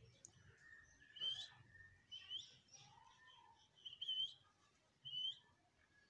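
Caged budgerigars chirping: four short, high chirps about a second apart, with softer warbling notes between them.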